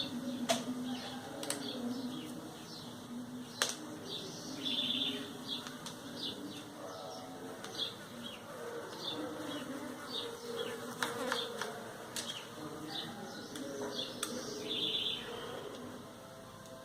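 Background birdsong: short repeated chirps with low wavering calls or buzzing beneath, and a few sharp clicks.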